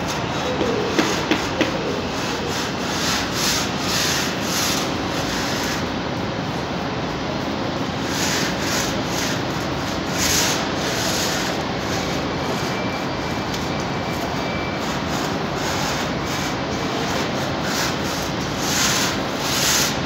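Paint roller on an extension pole being worked back and forth across ceiling boards: rubbing swishes in runs of strokes with pauses between, over a steady hum from the large hall. A few light clicks about a second in.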